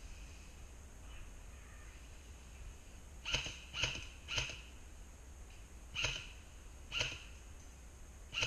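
Airsoft gun firing single shots: six short, sharp shots, irregularly spaced, starting about three seconds in.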